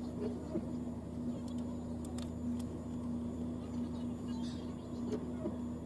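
Vehicle engine idling with a steady hum, heard from inside the cab, with a few faint clicks.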